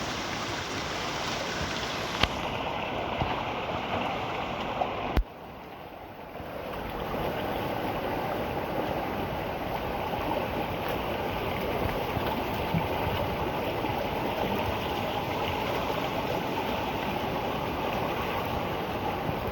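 Rain-swollen forest river rushing steadily past a bridge, its water running high after heavy downpours. The sound dips sharply for about a second and a half, about five seconds in, then returns.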